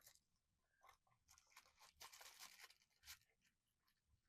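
Faint crinkling and rustling of a small plastic bag and a cardboard blind box being handled, in short scattered crackles.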